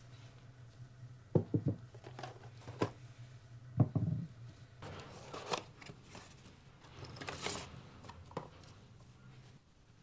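Handling sounds on a wooden workbench: paper rustling and crinkling, with a few sharp knocks and taps, the loudest in the first four seconds, as an iron axe head and small items are set down.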